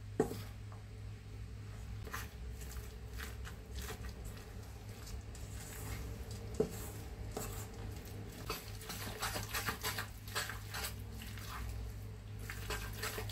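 A spoon stirring a thick egg-and-flour batter full of shredded vegetables in a stainless steel bowl: irregular wet squelching and scraping strokes, busier in the second half. There are two sharp clinks of metal on the bowl, one right at the start and one about halfway through.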